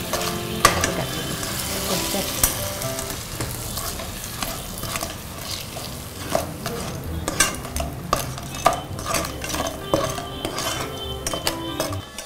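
Flat metal spatula stirring and scraping grated apple frying in ghee and sugar in a nonstick pan over a low flame, with a light sizzle under irregular scrapes and taps against the pan that come more often in the second half.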